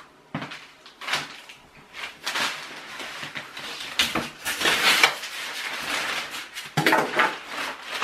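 Clear plastic packaging bag crinkling and rustling as a washing machine is tipped back onto its rear, with a few knocks from the machine being handled.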